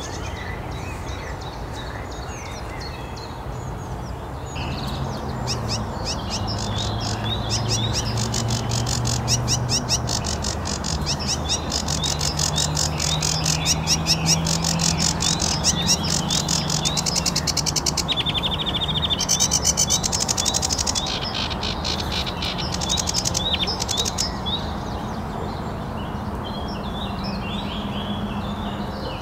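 Sedge warbler singing: a long, fast, chattering song of rapidly repeated harsh notes and trills, loudest in the middle and tailing off near the end.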